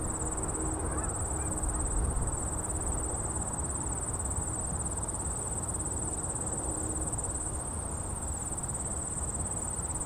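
Chorus of insects trilling, a steady high-pitched shrill that never breaks, over a low, even rumble.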